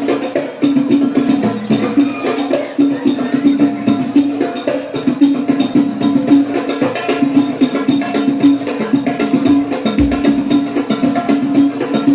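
Sholawat music from a hadroh-style ensemble played loud through a PA sound system, with a fast, dense beat of hand drums and tambourine jingles over a steady low tone. Recorded right beside the speakers, so it sounds loud and unclear.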